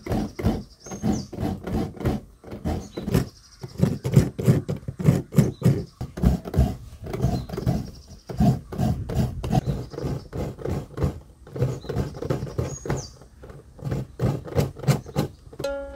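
A coconut half scraped by hand against a blade coconut grater, with repeated rasping strokes about two or three a second in runs with short pauses.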